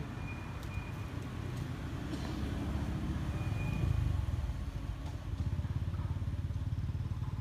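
Low rumble of a vehicle engine, swelling to its loudest about halfway through.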